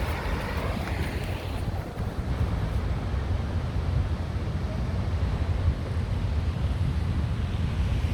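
Wind buffeting the microphone in uneven low gusts, over a steady rushing wash of sea surf.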